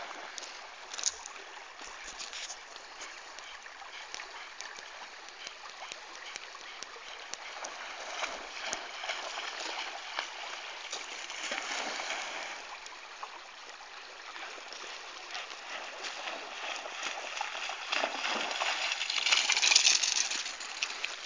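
Shallow river running over a gravel bed in a steady rush, with splashes from a dog moving through the water. The noise grows louder for a few seconds near the end.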